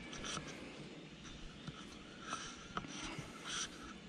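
Faint scraping and rubbing with a few small clicks: a metal fairing mount being worked down between a motorcycle windshield and its inner fairing, catching as it goes.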